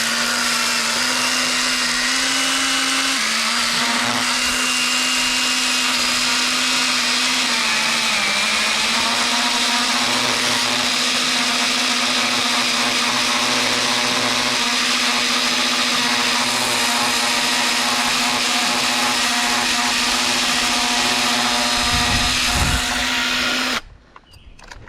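Echo battery-electric pruning saw running flat out with a steady whine, its pitch dipping slightly as the chain bites into a limb. A couple of low thuds come just before the saw stops suddenly near the end.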